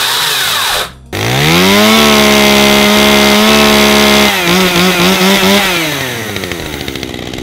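Makita DUC353 battery chainsaw whirring for about a second, then cutting off abruptly. A Stihl two-stroke gas chainsaw follows: its engine revs up to a high steady pitch, blips a few times, then drops back to a steady idle.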